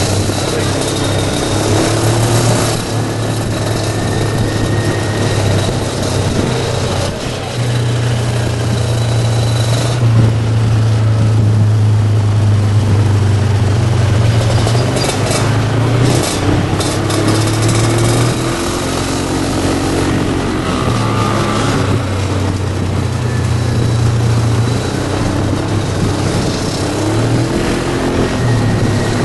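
Engines of a group of vintage scooters and motorcycles riding in convoy: a steady low engine drone, with engine notes rising and falling as riders open and close the throttle.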